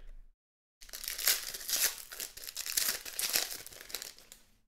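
Foil trading-card pack wrapper crinkling and tearing as it is opened by hand, starting about a second in and stopping near the end.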